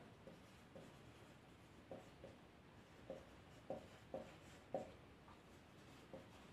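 Dry-erase marker writing on a whiteboard: faint, short squeaks and taps of the tip as each stroke is made, a few slightly louder about four to five seconds in.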